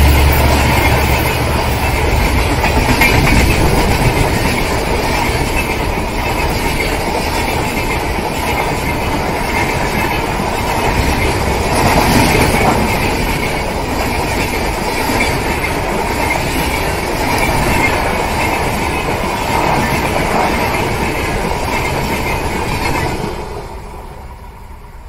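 LHB passenger coaches rolling past at speed, a steady rush of wheel and rail noise with the clickety-clack of the wheels on the track. It falls away sharply near the end as the last coach passes and draws off.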